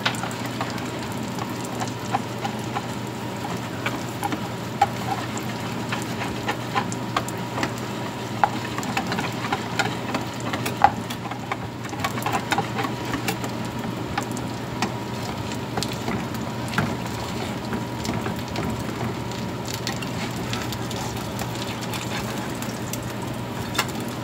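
Hot oil sizzling steadily as battered pancakes fry in two frying pans, with many small sharp pops and crackles scattered through it. A steady low hum runs underneath.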